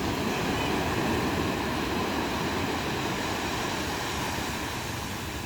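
Ocean surf washing onto the beach: a steady rushing of breaking and receding waves that eases slightly near the end.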